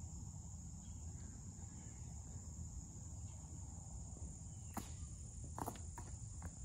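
Steady high-pitched insect chorus, with two sharp knocks about five seconds in.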